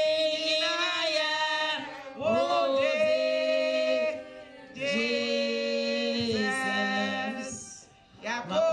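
A group of men and women singing unaccompanied, in long sustained phrases with short breaks between them.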